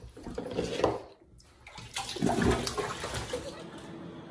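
Bathwater sloshing and splashing in a bathtub as a golden retriever puppy is washed. There is a short quiet break about a second in, then louder splashing.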